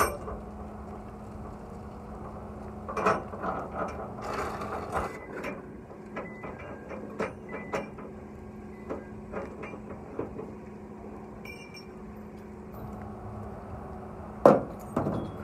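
Ratchet strap being worked around a stack of wooden pallets on a pickup truck bed: scattered clicks and clanks of its metal hardware, busiest a few seconds in, and a loud knock with a smaller one near the end as the strap goes up over the load. A steady low hum runs underneath.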